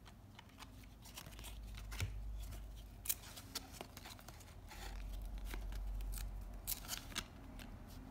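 Stiff cardboard 1993–94 Upper Deck basketball cards being shuffled through by hand, each card sliding off the next with a run of sharp clicks and snaps. The loudest snaps come about three seconds in and again near seven seconds.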